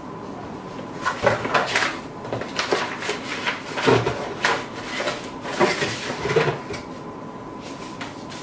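Unboxing handling noise: a cardboard box and its paper contents rustling and knocking as a touch panel is lifted out, in a run of clicks, scrapes and light thumps that starts about a second in and dies away near the end. A faint steady high tone runs underneath.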